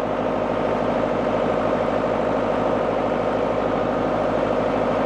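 Tractor engine running steadily at idle, an even pulsing note that holds constant.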